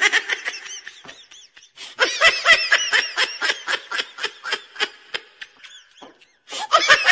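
High-pitched giggling laughter in quick repeated pulses, about six a second, breaking off briefly near the end before starting again.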